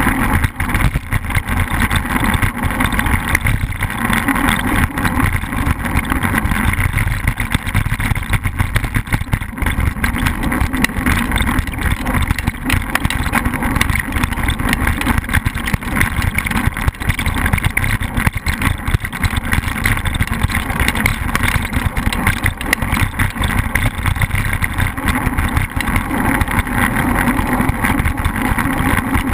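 Steady wind rush and road rattle on an action camera's microphone mounted on a moving bicycle's handlebars, a loud, even rumble with no break.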